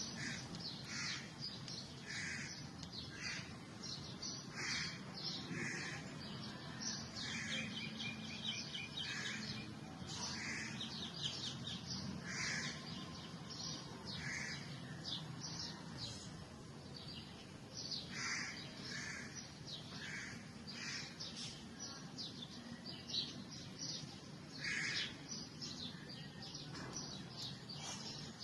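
Several birds chirping with many short, repeated calls, over a steady low background hum.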